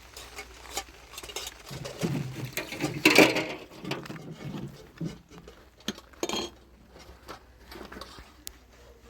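Scattered knocks and clinks of household objects being handled, like pots and utensils, with a louder clatter about three seconds in.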